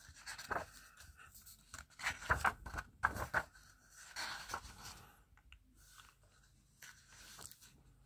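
Paper pages of a large book being handled and turned: rustling and crinkling in several bursts, loudest about two to three seconds in.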